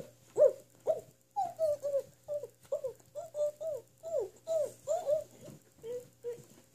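A girl's voice humming a quick run of short notes, each one sliding down in pitch, about two or three a second.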